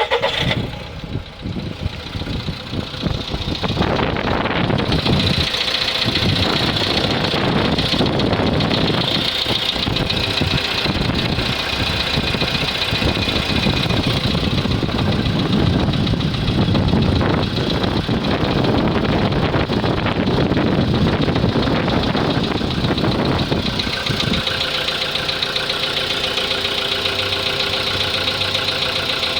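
An engine running, uneven and fluctuating at first, then settling into a steady, even idle about three-quarters of the way through.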